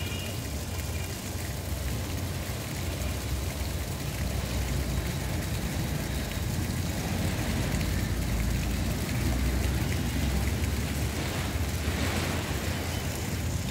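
Steady hiss of water spraying and splashing from a park fountain, over a continuous low rumble.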